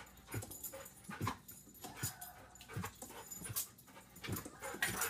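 Excited dog whimpering and panting in short sounds, about one a second.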